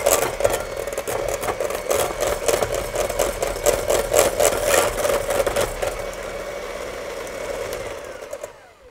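Electric hand mixer running, its beaters whipping softened butter and egg yolk and clattering against a stainless steel bowl. Near the end the motor is switched off and spins down with a falling whine.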